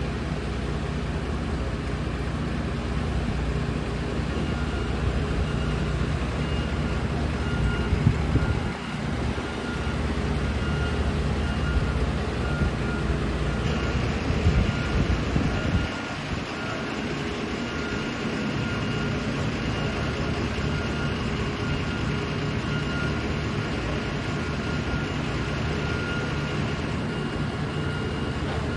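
Heavy road-construction machinery working on asphalt paving: a vehicle engine running steadily while a reversing alarm beeps repeatedly, with a few louder knocks about eight seconds in and again around fifteen seconds.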